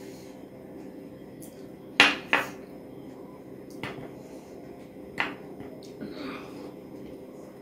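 Glass bowl and plate clinking: two sharp knocks about two seconds in, the loudest, then a few lighter taps and a soft squish as rice and curry are mixed by hand on the plate.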